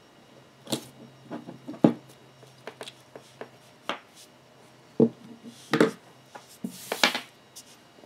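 Scattered clicks and knocks from handling a ratcheting RJ45 crimping tool and an Ethernet patch cable with its plastic plugs, with a short rustle of the cable near the end.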